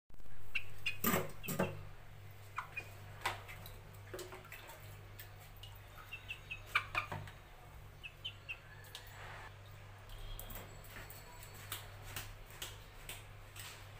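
A white rooster moving about in a wet stainless steel sink: scattered taps and knocks of its claws on the steel, the loudest about a second in, with a few soft, short high clucks. A low steady hum runs underneath.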